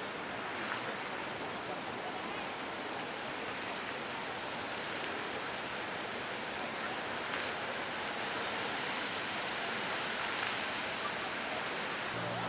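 Fountain water splashing steadily: an even, unbroken rush of falling water.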